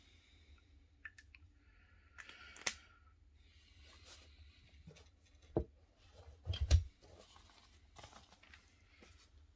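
Paper rustling as a spiral-bound notebook is handled and moved, with light clicks and two soft knocks, the louder one just under seven seconds in.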